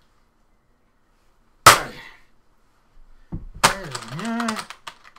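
A hammer strikes a computer keyboard once, a sudden loud crack about a third of the way in. Near the end a man gives a wordless angry growl over quick keyboard clicks.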